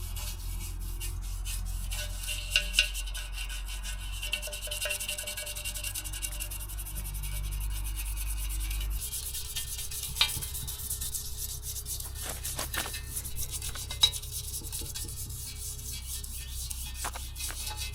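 Repeated rubbing and scraping strokes on the metal expansion chamber of a Yamaha YZ125 two-stroke, working off black spray paint softened by aircraft paint stripper, with a few sharp clinks.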